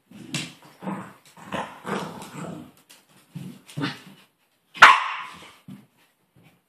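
Two dogs, a Bichon Frisé and a larger white dog, growling at each other in a string of short rough growls, with one sharp loud bark just before five seconds in.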